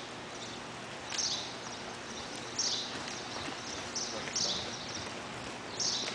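Horses trotting on the soft footing of an indoor riding arena, with a short swishing hiss coming about every one and a half seconds.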